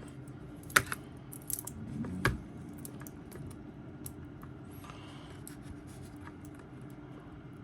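Small clicks and light scratching from handling a watch strap's metal deployment clasp, with two sharper clicks in the first few seconds.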